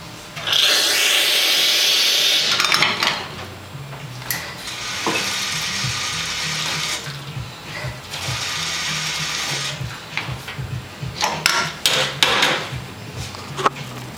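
Espresso-making machinery at work: three bursts of loud rushing, grinding or hissing noise, then a run of sharp metal clicks and clunks near the end as the portafilter and machine are handled. Background music plays underneath.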